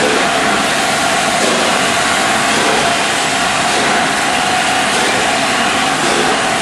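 LNER A4 Pacific 4-6-2 steam locomotive hauling its train out of the station: a loud, steady rush of steam and running-train noise with no clear break or change.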